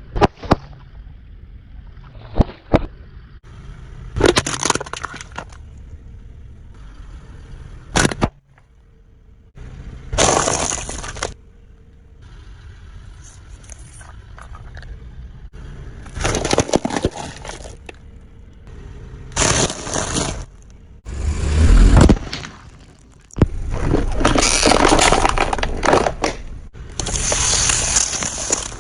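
Car tyres rolling over and crushing objects, a string of about ten separate crunching and cracking bursts, each a second or two long, some ending abruptly, over a steady low rumble.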